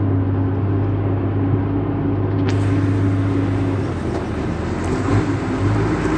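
Outrigger boat's engine running under way, a steady low drone whose note becomes unsteady about four seconds in.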